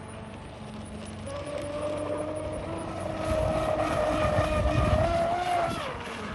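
Arrma Zelos 48 RC catamaran's brushless motor whining at full speed on 8S power, getting louder as the boat runs past. Its pitch drops near the end as it goes by, over a rushing hiss of spray.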